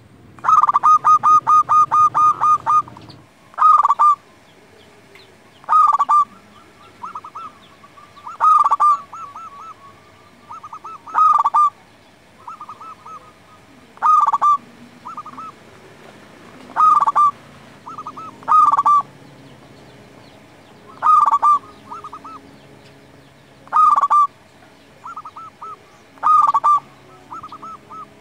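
Zebra dove (perkutut) cooing: a quick run of about a dozen notes at the start, then a short cooing phrase roughly every two and a half seconds, with softer notes between.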